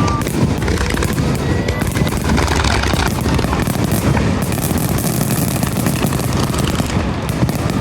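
Fireworks finale barrage: a dense, continuous run of rapid booms and crackling bursts with no break.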